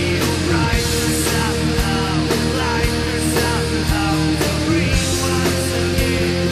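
Electric guitar tuned to D standard, played along with a rock backing track that has drums and held chords.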